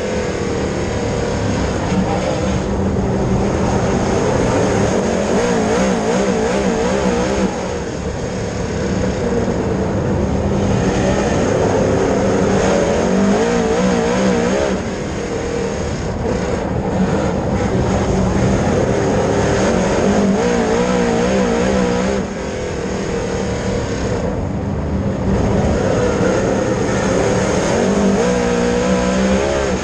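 Dirt late model race car engine running hard at speed. Its pitch wavers up and down, and the level drops briefly about every seven seconds.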